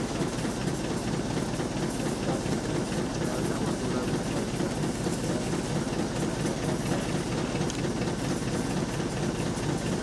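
Steam launch Consuta under way: a steady, even low running noise from the boat's steam engine and its passage through the water.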